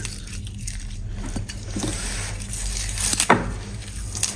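Hands handling a raw sea bass in a ceramic bowl, rubbing in marinade and pushing in scallions: soft handling noises with small clicks and one sharp tap about three seconds in, over a steady low hum.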